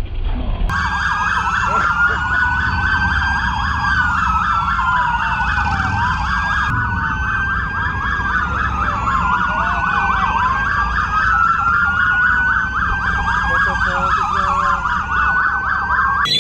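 Several police motorcycle sirens sounding together, starting under a second in: a fast yelp overlapped by slower rising and falling wails.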